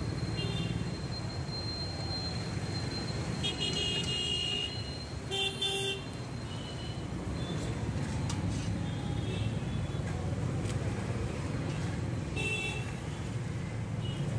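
Street traffic going by, with short vehicle horn toots several times, about four seconds in, near six seconds and again near the end, over a steady low rumble.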